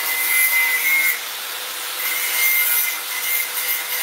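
Corded electric drill running into a PVC window sash while the tilt-and-turn hardware is being fixed. Its motor whine stops about a second in and starts again about two seconds in.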